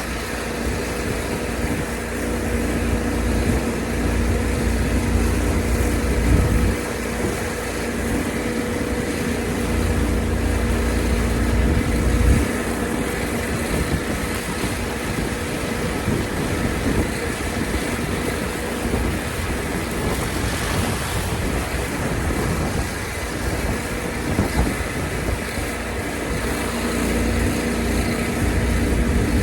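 Pressure washer engine running steadily.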